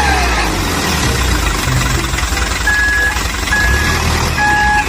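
Electronic sound effects of a toy claw truck: a low engine-like rumble mixed with music. From about halfway through, a steady electronic beep repeats a little more than once a second, and a lower second tone joins it near the end.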